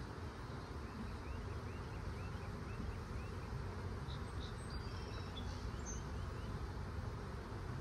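Steady buzzing of a large mass of honeybees around an opened nucleus hive. Faint short high chirps repeat through the first half, and a few brief high calls come about halfway through.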